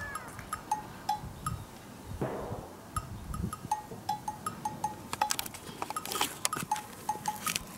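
A cat shifting about behind an old wooden door, with light rustles and taps against the wood, over a recurring light bell-like clinking at two pitches. There is a short animal call about two seconds in.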